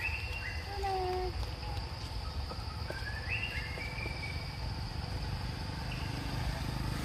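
Forest ambience: a steady high-pitched insect drone with a low rumble beneath, and a few short whistled animal calls, one falling in pitch about a second in and another stepping up then holding around three to four seconds in.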